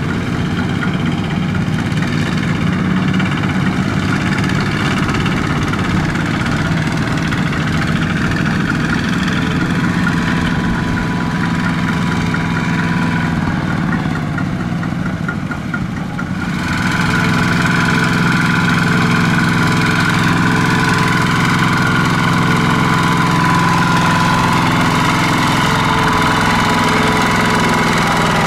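Single-cylinder diesel engine of a two-wheel walking tractor running steadily while it pulls a trailer loaded with rice sacks. About halfway through it becomes louder and fuller, as a tractor closer by is heard.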